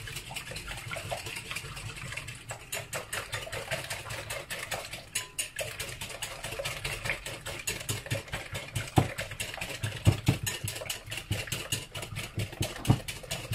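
Eggs being beaten with a metal utensil in a glass mixing bowl: a rapid, steady run of clicks as it strikes the glass, several a second, with a few heavier knocks in the second half.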